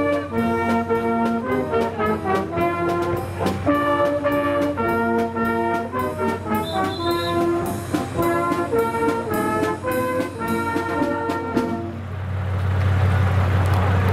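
Brass fanfare band playing a tune with a steady drum beat. About twelve seconds in the music stops, leaving a steady low hum and rushing noise.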